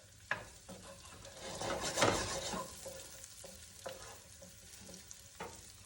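Chopped onion sizzling in hot oil in a pan, stirred with a utensil that scrapes and taps the pan a few times. The loudest stir comes about two seconds in.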